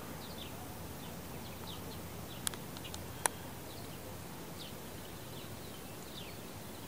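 Black Swedish ducklings peeping: short, high, falling chirps, about two a second. Two sharp clicks sound a few seconds in, about a second apart.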